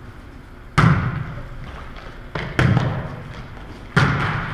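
A volleyball struck by players' hands and arms during a rally: three sharp smacks, about a second and a half apart, the first the loudest, each echoing in the gymnasium.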